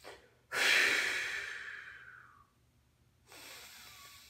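A man taking slow, deep breaths close to the microphone as a controlled breathing drill. One long breath of about two seconds starts strong and fades. A softer breath follows about three seconds in.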